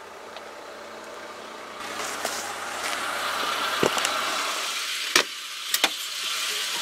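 A car's steady rushing noise sets in about two seconds in, with a few sharp clicks over the next few seconds.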